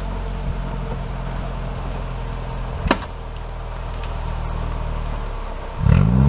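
Off-road 4x4's engine idling steadily, with one sharp knock about three seconds in, then revving up near the end.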